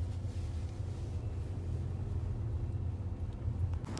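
Steady low drone of a car running, heard from inside the car, with a few faint steady tones above it; it cuts off abruptly near the end.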